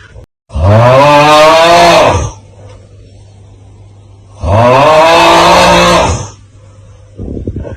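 The 'Aauuggh' TikTok snoring meme sound looping: a man's loud, drawn-out 'aaugh' groan, twice, each about two seconds long with the pitch rising then falling. A low hum lies between them, and a short snoring rasp comes near the end.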